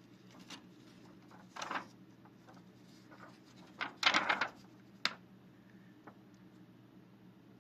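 Thin plastic film crinkling as it is handled and flexed, in two short bursts, the second one about four seconds in the louder, followed by a single sharp click. A faint steady low hum runs underneath.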